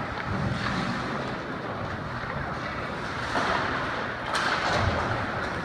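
Ice rink ambience during a youth hockey game: a steady wash of noise with faint distant voices, and one brief sharp sound about four and a half seconds in.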